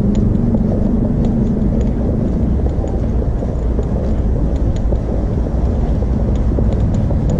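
Steady low rumble of a vehicle in motion, with a low hum from its engine or motor in the first couple of seconds and faint light ticks over it.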